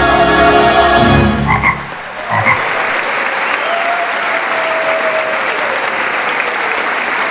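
The recorded music ends on a held chord. Two short frog croaks follow, about a second apart, at the finish. Then the audience applauds steadily.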